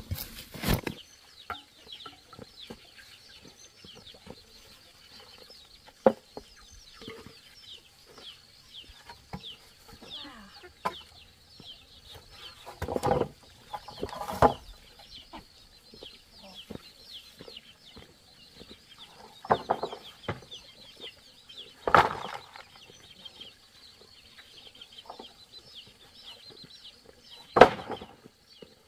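Wooden boards being handled and set down on bare earth: scattered knocks and a few louder thumps, the sharpest near the end, over a constant high chirping in the background.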